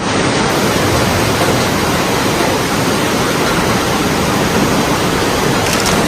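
Loud, steady rush of water.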